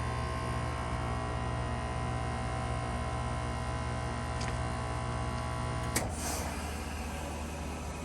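Lennox Merit heat pump's outdoor unit running its defrost cycle with a steady compressor hum. About six seconds in, a sharp click and a short hissing whoosh, typical of the reversing valve shifting, change the sound to a broad, even rush.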